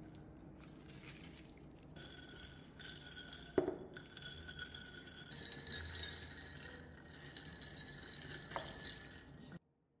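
A glass of iced drink clinks sharply once, about a third of the way in, and lightly again near the end, over faint room noise and a few steady high tones. The sound cuts off abruptly just before the end.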